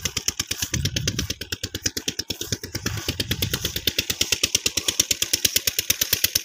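Single-cylinder 'Peter' diesel engine driving an irrigation pump, running with an even, rapid knocking beat, about ten knocks a second.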